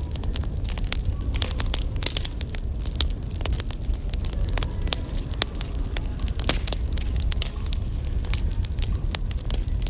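Wood fire crackling: many irregular sharp snaps and pops over a low, steady rumble.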